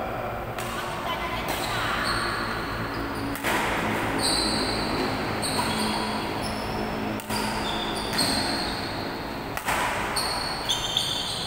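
Doubles badminton rally in a large echoing hall: sharp racket strikes on the shuttlecock every second or two, with sneakers squeaking on the court floor.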